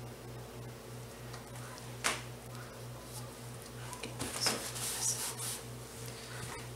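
A sharp click about two seconds in, then a cluster of light clicks and rustles, from soap-making utensils being handled, over a steady low hum.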